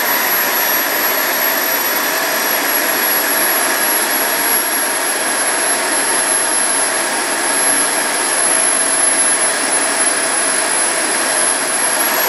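Twin Wren 44 K model turboprop engines running on a scale Cessna 425, a steady turbine whine with propeller noise at constant power.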